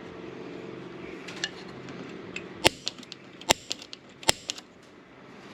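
Metal tools and parts being handled on a workbench: scattered clinks, then three sharp metallic clacks about a second apart in the second half, over a low steady hum that fades out about halfway.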